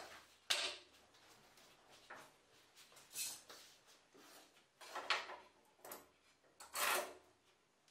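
Handling noise on a wooden workbench top: five or six separate short knocks and scrapes of wood and a clamp being moved and set, the longest scrape near the end.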